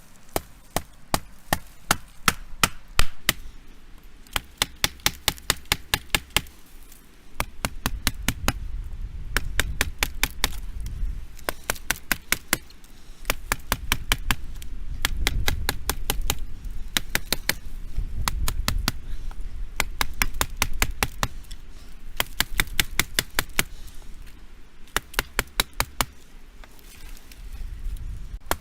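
Becker BK17 knife chopping wood: rapid runs of sharp strikes, several a second, broken by short pauses, with a low rumble underneath from about a quarter of the way in.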